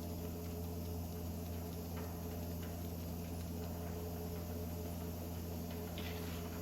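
A steady low hum with a few faint light ticks.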